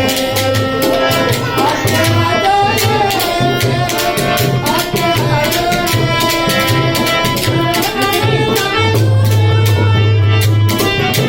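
Rajasthani folk music accompanying a puppet show: fast hand-drum strokes under sustained melody notes.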